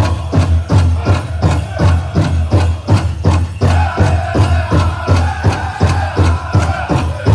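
Powwow drum group: a large hand drum struck in a fast, steady beat, with the singers' high voices coming in about three and a half seconds in.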